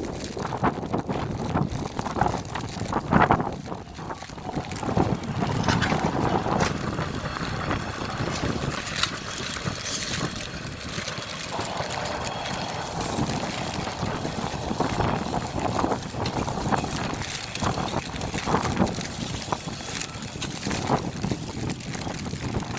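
Wind gusting over the microphone in a snowstorm, an uneven rumbling rush that swells and drops.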